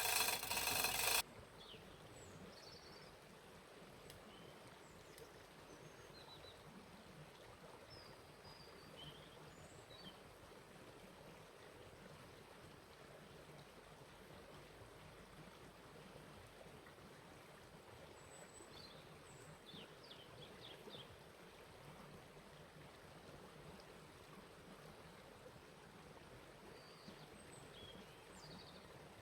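Faint outdoor ambience: a steady low hiss with scattered, distant short bird chirps. A loud machine-like noise fills the first second and cuts off suddenly.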